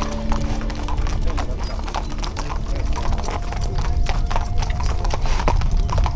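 Hooves of a line of horses walking on an asphalt road, many overlapping clip-clop strikes in an uneven patter.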